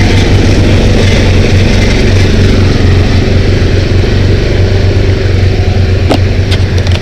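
Off-road vehicle engine running steadily close by, with one sharp click about six seconds in.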